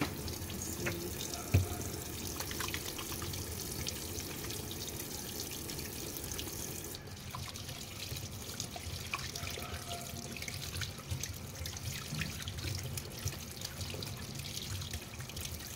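Kitchen faucet running, the stream splashing over hands being rinsed and rubbed together and into a stainless-steel sink. A single sharp knock about one and a half seconds in; the splash gets a little softer about seven seconds in.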